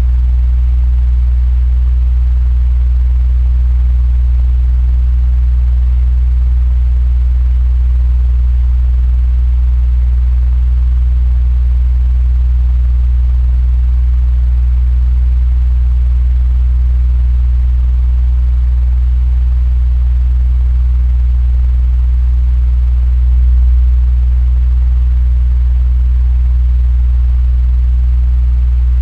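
Electric fan running steadily: a deep, even hum with a faint airy hiss above it.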